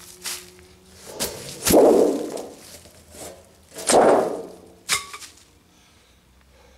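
Two rusty metal sheets are dropped one after the other onto dry leaf litter, each landing with a thud about two seconds apart. A sharp knock with a short ringing tone follows about a second after the second one.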